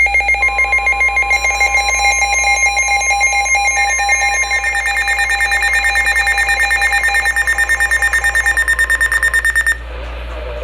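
NOAA Weather Radio's steady 1050 Hz warning alarm tone, which announces a severe thunderstorm warning, sounds together with a weather alert receiver's rapid pulsing electronic alarm beeps. Both stop abruptly just before the end, leaving radio hiss.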